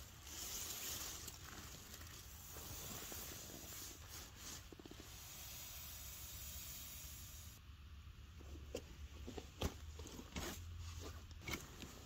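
Nylon sleeping pad and bedding rustling and sliding over dry leaves as they are laid out, a steady hiss that stops abruptly about seven and a half seconds in, followed by scattered rustles and light clicks.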